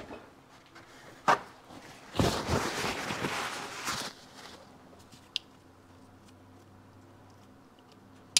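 Handling noise: a click, then about two seconds of rustling, then a sharp click near the end as the gears on the transmission shaft are taken in hand.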